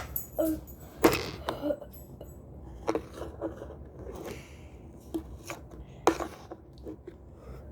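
Irregular clicks, taps and knocks of small plastic fidget toys being handled and sorted, the sharpest about a second in and again around six seconds.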